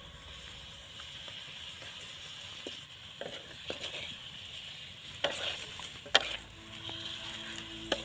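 Food sizzling in a pan, with a few clicks and scrapes of a utensil stirring it; the loudest knock comes about six seconds in.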